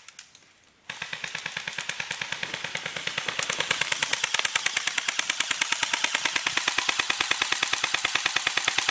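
Airsoft gun firing on full auto with the trigger held down: a rapid, even stream of shots that starts about a second in and keeps going without a break.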